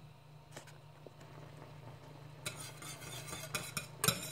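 Wire whisk stirring a thickening cream sauce in a metal saucepan, its wires clicking and scraping against the pan; faint for the first half, then a quick run of strokes from about halfway in, loudest near the end. A low steady hum runs underneath.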